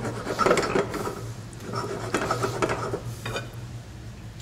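Pieces of raw pollock fillet being slid off a plate into a stainless steel saucepan of curry sauce, with light clinks and knocks of plate and pan in three short spells, over a steady low hum.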